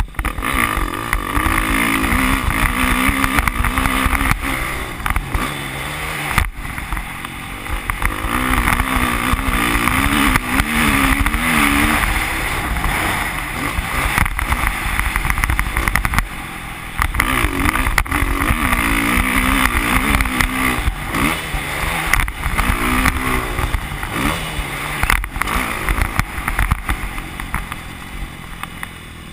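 Dirt bike engine revving hard around a motocross track, the revs rising and falling with the throttle, with a few short drops where the rider shuts off for gear changes and corners. Heavy wind rumble on the onboard microphone.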